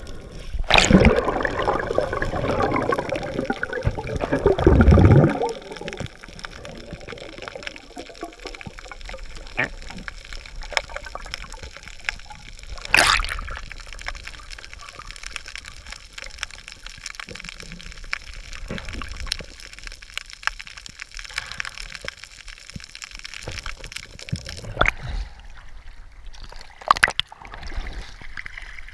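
Sea water sloshing and gurgling around a camera at the surface and underwater, with a louder rushing splash for the first few seconds, then a quieter wash with scattered clicks and a sharp knock about halfway through.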